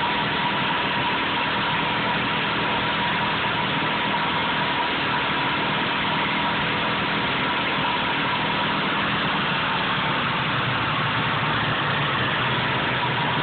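Suzuki GT380's air-cooled two-stroke three-cylinder engine idling steadily, with an oil leak at the left cylinder's exhaust.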